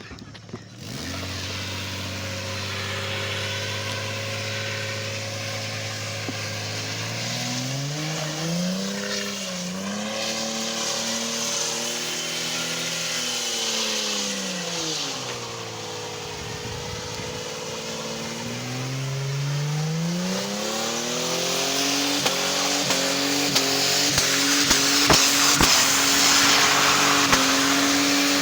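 Car engine idling, then revved up and back down, then revved again and held at high revs near the end while the hiss of spinning tyres builds, as in a burnout.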